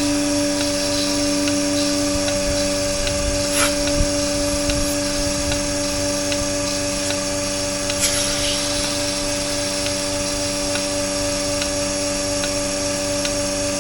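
Milking machine running on a cow: the vacuum pump's steady motor hum with the pulsator ticking in an even rhythm, and a couple of brief knocks.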